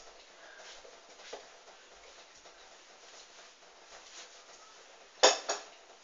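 Hoover Dynamic washing machine on its gentle wool and silk cycle, running faintly, with a single sharp clattering knock a little past five seconds in.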